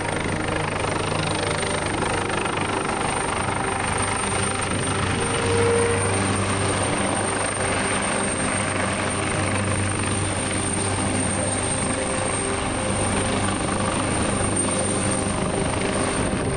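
Leonardo AW139 twin-turbine helicopter hovering low near the ground: steady rotor and turbine noise with a thin high whine over it, growing a little louder about five seconds in.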